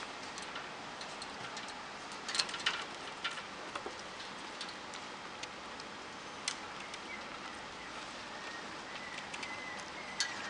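Scattered sharp clicks and light rattles of a Jack Russell terrier puppy's claws on its wire pen and floor, a cluster of them a couple of seconds in, over a steady hiss. A faint, thin, high whine comes in for the last few seconds.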